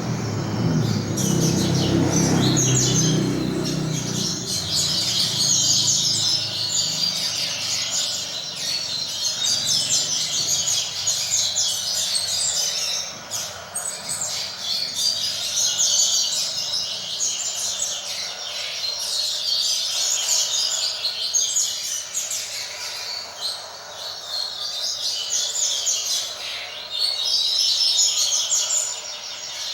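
Double-collared seedeaters (coleiros) singing: a young male practising its song amid a recorded group of coleiros, fast high chirping phrases repeated almost without pause. A low rumble underlies the first few seconds.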